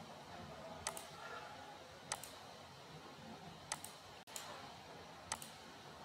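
Computer mouse button clicking four times, about one every second and a half, each a sharp press-and-release pair, over faint steady hiss.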